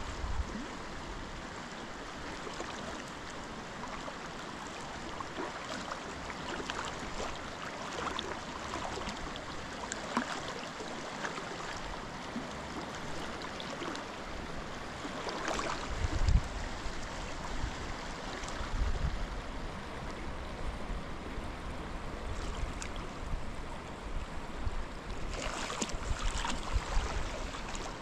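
Fast river water rushing steadily, with a few short, louder noises about halfway through and again near the end.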